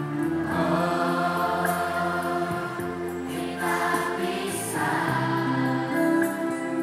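A children's choir singing together, holding long notes.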